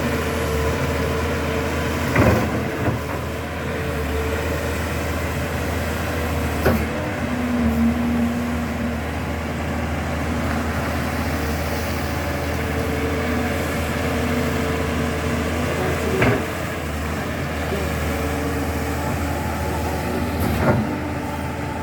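Backhoe's diesel engine running steadily, with four short sharp knocks spread through the drone.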